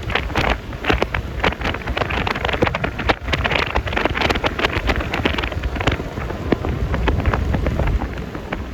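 Wind buffeting the phone microphone on a moving Yamaha Lexi LX 155 scooter: a steady rush full of crackles, over the low rumble of the scooter's engine and tyres on the road.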